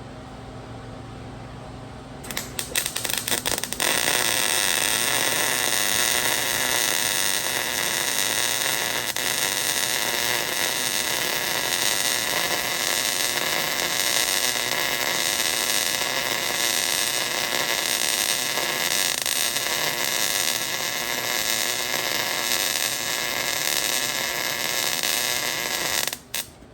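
Arc welding: the arc strikes with a few sputtering starts about two seconds in, then runs as a steady, loud crackling hiss for about 22 seconds before it stops shortly before the end.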